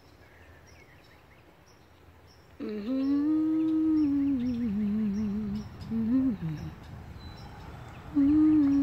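A person humming a slow tune with long held notes, starting about two and a half seconds in, breaking off briefly around six seconds and picking up again near the end.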